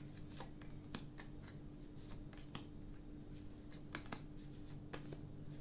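Tarot cards being shuffled by hand: soft, irregular clicks and flicks of the cards, over a steady low hum.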